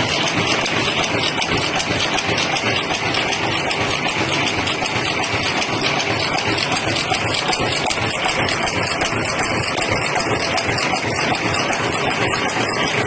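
Paper clip making machine running with a steady, rapid mechanical clatter.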